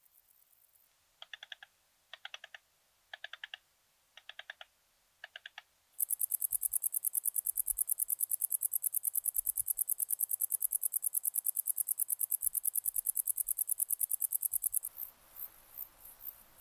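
Bush-cricket song. A few seconds in come five short groups of lower chirps, about one a second. Then a Common Wart-biter (Decticus verrucivorus) starts its song: a loud, even run of high ticks, about seven a second, lasting some nine seconds. Near the end it gives way to the separate short high chirps of a Basque wide-winged bush-cricket (Zeuneriana abbreviata).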